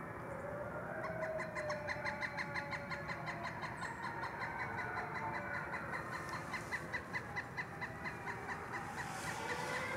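A chorus of many wolves howling, long wavering howls overlapping one another. A rapid series of short high calls, about three a second, runs through it from about a second in until near the end.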